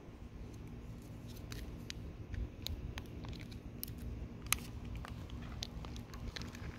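Hands opening a Kinder Surprise egg: scattered small clicks and crackles over low handling rumble, the sharpest click about four and a half seconds in.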